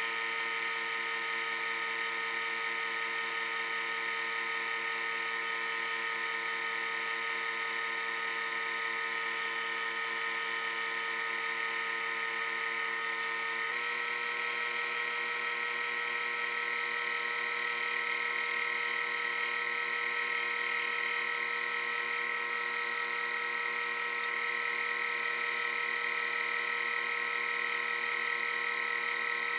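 Bench sander running steadily while the top of a wooden leg is sanded to a round over. Its tone shifts slightly about halfway through.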